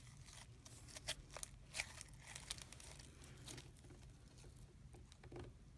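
Faint, scattered crackles and pops from crunchy slime with small plastic beads mixed in, as it is kneaded and stretched by hand.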